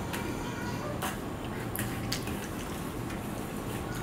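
Eating with the fingers from a steel plate: a handful of soft clicks and taps over a steady low hiss.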